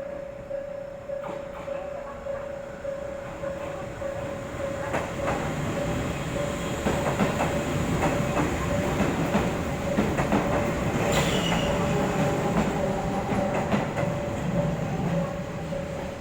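Japanese level-crossing alarm ringing on with an even, repeating electronic bell tone while an Izu-Hakone Railway Sunzu Line train runs over the crossing, its wheels clattering over rail joints. The train noise swells about five seconds in, is loudest through the middle, and eases near the end.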